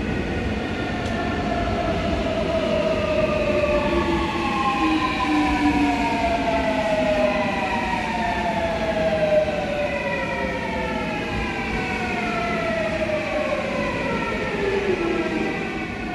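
Seoul Subway Line 8 electric train pulling into the station and slowing: the whine of its inverter-driven traction motors, several tones together, falls steadily in pitch as it brakes, over the rumble of the wheels.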